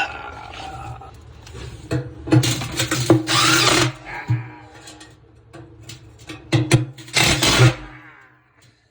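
Power drill running in several short bursts on the dryer's rear bearing mounting, the longest burst about three seconds in and another about seven seconds in.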